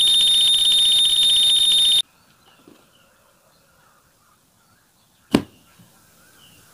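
A loud, steady, high-pitched electronic beep lasting about two seconds that cuts off suddenly, followed a few seconds later by a single sharp click.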